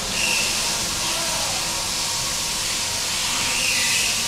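Handheld hot air gun running, its fan blowing a steady hiss of hot air onto a repair patch.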